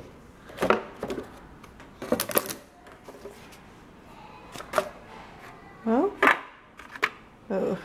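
Paper rule sheets of a board game being lifted and handled, with scattered light clicks and knocks from the cardboard and plastic contents of the game box.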